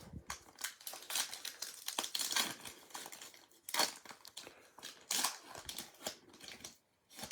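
Plastic foil wrapper of a trading-card pack crinkling and tearing as it is opened, with a few sharper crackles about four and five seconds in.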